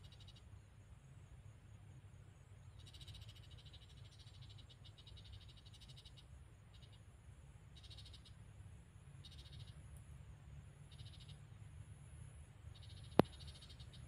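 Faint animal calls: short, rapidly pulsed chirping trills that come in repeated bursts at irregular intervals, over a low steady rumble. A single sharp click near the end is the loudest sound.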